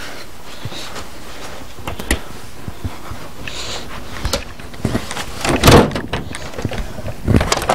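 Knocks and rubbing from a handheld camera being moved around and bumped against wooden doors or cabinetry, with a louder scraping rustle about six seconds in and another bump near the end.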